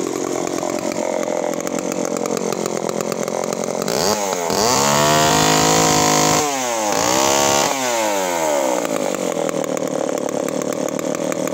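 Large vintage Homelite two-stroke chainsaw with a very long bar, freshly started and idling, revved up twice, about four and seven seconds in, each time falling back to a steady idle.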